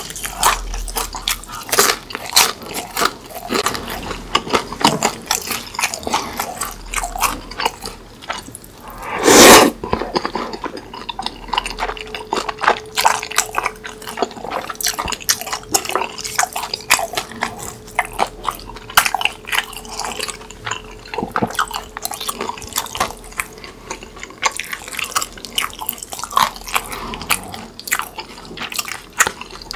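Close-miked mukbang eating sounds: chewing and crunching fried food and tteokbokki, with chopsticks and a ladle clinking against the bowls and sauce dripping. One loud rushing sound about nine seconds in, and a faint steady tone through the middle.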